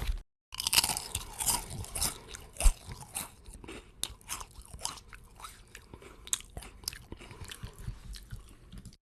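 Someone biting and chewing potato chips: a fast, irregular run of crisp crunches, with one especially loud crunch a little under three seconds in. The crunching stops abruptly just before the end.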